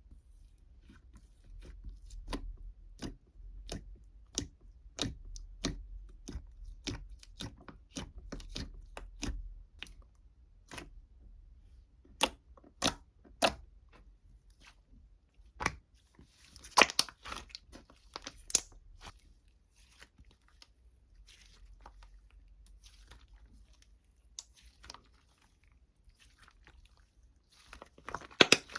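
A run of sharp clicks and crunches, with a burst of crinkling about halfway through and more crinkling starting near the end.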